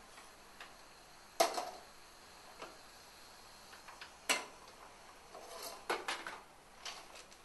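Metal cooking pans knocked and set down on the steel grates of a gas hob. There are two sharp clanks, about a second and a half and about four seconds in, then a cluster of lighter knocks and scrapes near the end.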